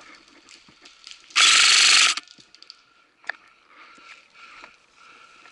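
A short full-auto burst, a little under a second long, from a VFC MK18 Mod 1 electric airsoft rifle: its motor and gearbox cycling rapidly. A single sharp click follows about a second later.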